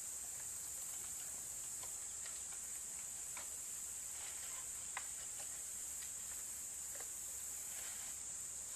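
Steady high-pitched drone of insects, with faint scattered clicks and taps from a trotline being pulled in hand over hand. The sharpest tap comes about five seconds in.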